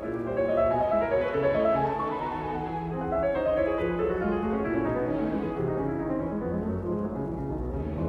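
Classical-style instrumental background music led by piano, with held bass notes underneath.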